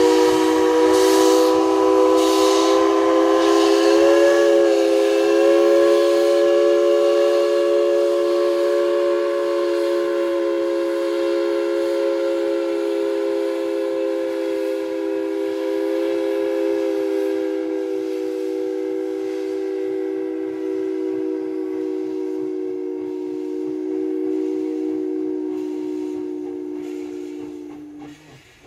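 Steam locomotive's chime whistle, Tweetsie Railroad's narrow-gauge Engine 190, blowing one long chord of several tones. The chord is held for nearly half a minute with a brief waver about four seconds in, then slowly fades and cuts off shortly before the end, with steam hiss under it.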